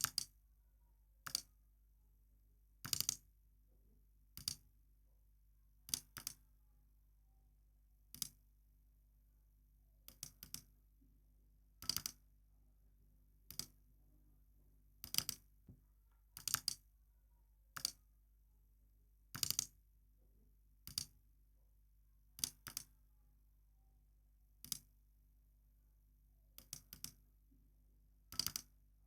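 Computer mouse button clicking: sharp single clicks and quick double clicks, one every second or two at an uneven pace.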